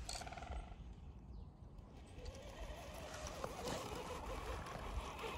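RC crawler's electric motor and geared drivetrain whirring as its tyres churn through deep snow, growing louder from about two seconds in, with irregular crunching of snow. A short buzzing tone sounds right at the start.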